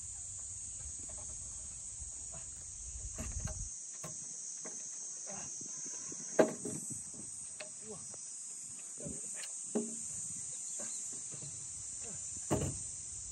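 Insects, cricket-like, singing in a steady high shrill band, with scattered sharp wooden knocks and thumps from someone climbing about on timber scaffolding. The loudest knock comes about six seconds in, and others come near ten seconds and near the end. A low rumble stops about four seconds in.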